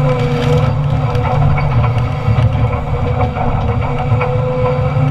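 Doosan Solar 255 LC-V excavator's diesel engine running steadily under load, with a hydraulic whine that comes in at the start and again about four seconds in as the shear works, and a few faint cracks from the timber.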